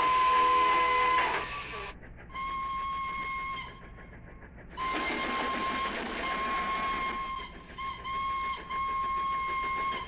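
Steam whistle blowing one high, steady note in about five blasts of one to two and a half seconds each, separated by short gaps.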